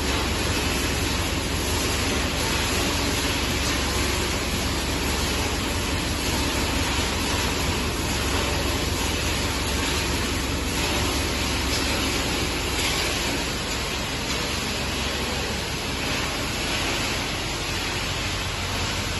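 500 kg/h waste circuit board recycling machine running: a steady, even rush of noise with a low hum underneath.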